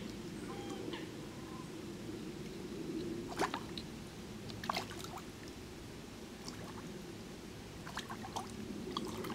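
Water trickling and lapping at the water's edge, with a couple of short, sharp splashes about three and a half and five seconds in.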